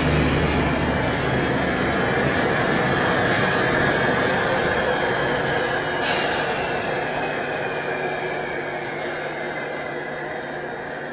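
Diesel radial aircraft engine winding down after shutdown: the propeller spins down to a stop while high whines slide slowly downward in pitch and the sound fades gradually.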